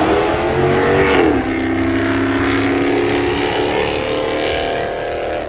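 Car engine accelerating hard, its pitch climbing and then dropping sharply about a second in, like a gear shift, before rising slowly again.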